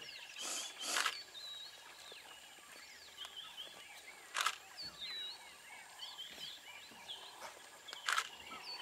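African wild dogs (painted dogs) giving many short, high, bird-like twittering chirps while feeding together on a carcass, with a few sharp snaps.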